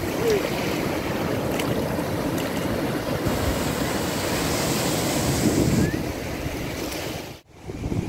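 Sea surf washing steadily onto a sandy beach, with wind on the microphone. The sound cuts out abruptly for a moment near the end.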